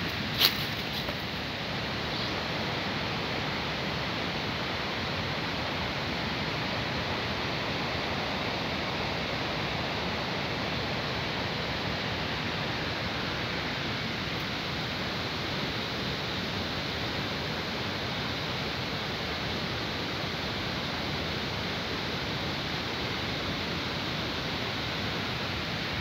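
A steady, even hiss with nothing standing out in it, and a single brief click just after the start.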